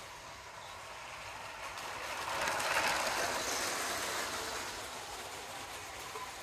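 A LEGO-brick model train running on plastic track, its rattle growing louder to a peak about three seconds in and then fading as it passes by.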